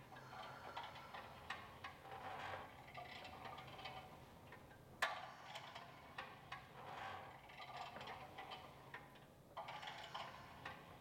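Pilates reformer in use: the carriage glides on its rails and the ropes run through the pulleys as the legs move in the straps, making soft repeated rattles and ticks. A single sharp click about five seconds in.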